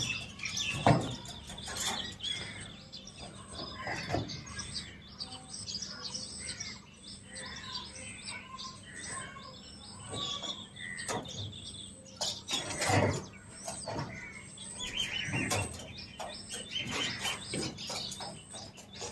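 Several small birds chirping and twittering, many short calls overlapping throughout, with a few louder short rustling knocks, the loudest about two-thirds of the way through.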